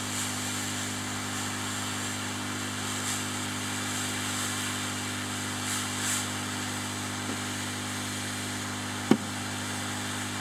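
Hot-air gun of a Tenma rework station blowing at 60% airflow, a steady rushing hiss with a low hum underneath, heating surface-mount resistors to melt their solder. A single short click about nine seconds in.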